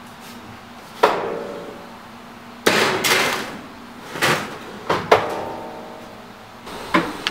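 Rimmed metal baking sheet clanking against the stove and oven as it is handled: a string of sharp metal knocks, some ringing briefly.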